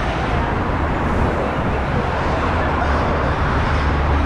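Steady engine and road noise of a moving road vehicle, with a deep, even rumble underneath.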